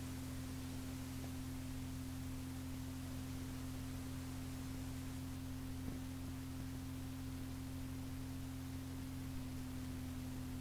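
Blank stretch at the end of a cassette tape playing back: a steady low hum of several held notes under a faint hiss.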